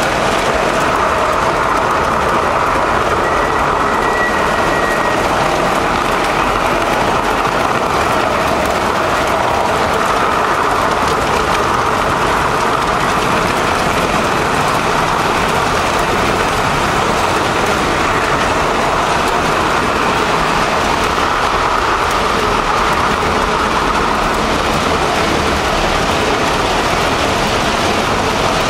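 Model subway train running steadily along the layout track, its motor and wheels on the rails making a continuous loud rolling noise close to the microphone. A short faint high tone sounds about three seconds in.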